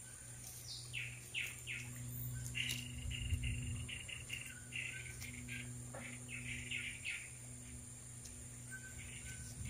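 Birds calling: a run of short down-sliding chirps and a brief held high note through the middle, and a few short whistled notes near the end, over a faint steady low hum.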